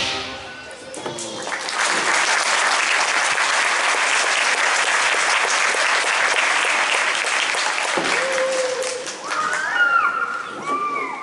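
Audience applause: a dense spell of clapping after a children's song ends, lasting about seven seconds and dying away near the end as children's voices come in.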